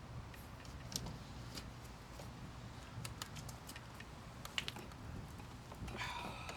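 Faint, irregular metallic clicks and taps of hand tools working an old outdoor spigot loose from its pipe, over a low steady hum.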